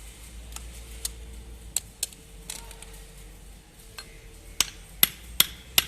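Hammer striking metal, a few scattered light taps and then a steady run of blows, about two or three a second, from about two-thirds of the way in: seating the bearing cups of a truck propeller shaft's universal-joint cross into the yoke.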